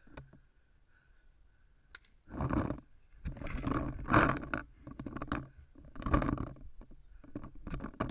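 Muffled rushes of breath close to the microphone, about one a second, starting about two seconds in.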